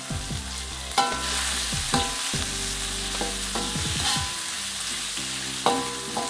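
Metal spatula scraping and knocking against an aluminium wok while a chilli-and-spice paste with aromatic leaves sizzles in hot oil. Sharp clangs about a second in, at two seconds and near the end leave the wok ringing briefly over the steady frying sizzle.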